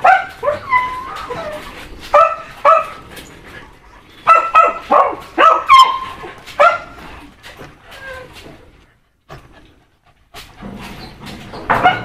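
Young dachshunds yapping in short, high barks that drop in pitch, in bursts: a few at the start, two about two seconds in, and a quick run between about four and seven seconds. After a brief lull there is one more loud bark near the end.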